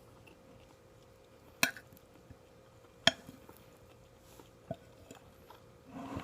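Cutlery clinking twice against a plate during a meal, with a few small ticks and a short scrape near the end.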